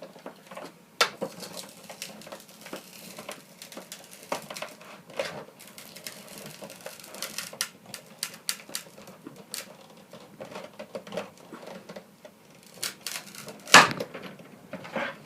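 Hand-cranked Cuttlebug die-cut and embossing machine running an embossing folder sandwiched between plastic plates, with irregular clicks, taps and rustling of the plates and folder and a louder knock near the end.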